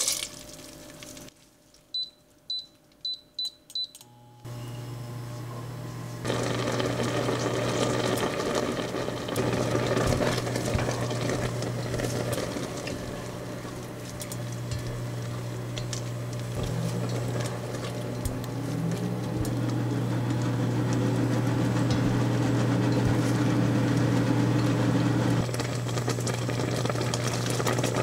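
Water is poured into a pot of blueberries, then five quick beeps from the cooktop's touch controls. The cooktop then hums steadily while the blueberries heat up and simmer with a crackling bubble, stirred now and then with a wooden spatula, as the juice cooks down into jam.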